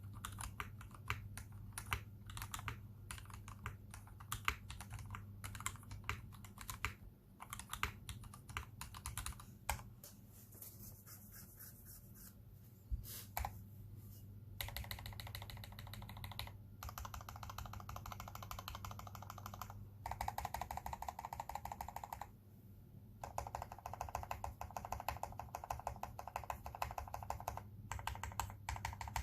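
Custom mechanical keyboard, a KBD67 v2 with tuned Cherry MX Black Retooled linear switches in a brass plate and PBT doubleshot keycaps, being typed on. Separate keystrokes come at an irregular pace at first; from about halfway they come in long stretches of very fast, dense keystrokes with brief pauses between them.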